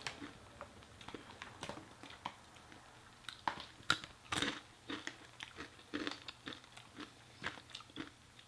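A person chewing crunchy Takis rolled tortilla chips dipped in queso cheese: irregular crunches and wet mouth clicks, close to the microphone.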